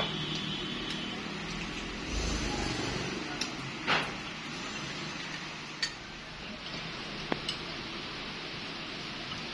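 Chopsticks clicking against porcelain bowls and plates as people eat: a handful of short, sharp clinks, the loudest about four seconds in, over a steady background hiss.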